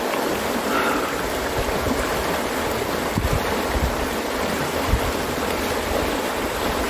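Fast river water rushing steadily over rapids, an even, unbroken rush, with a few brief low bumps on the microphone.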